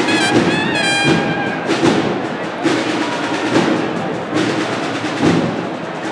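Cornet-and-drum band music: a held cornet note breaks off after about a second and a half, then drums carry on with a heavy beat about once a second.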